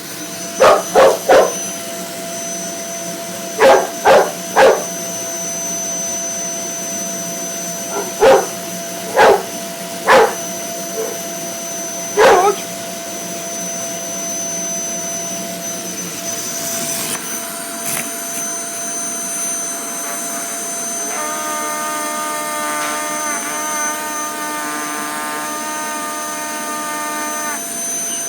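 A vacuum cleaner running with a steady hum while a boxer dog barks at it, about ten sharp barks in groups of two or three during the first half. Later the barking stops and only the vacuum's hum continues, with a wavering tone over it.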